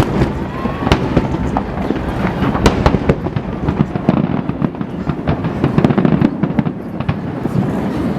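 Fireworks display: many bangs and crackles in quick, irregular succession over a continuous low rumble of bursting shells.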